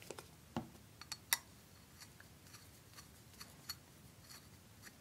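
Faint, scattered small metallic clicks and taps, the sharpest about a second and a half in: a screwdriver meeting and turning a small screw in a painted metal ashtray, with the piece handled in the hand.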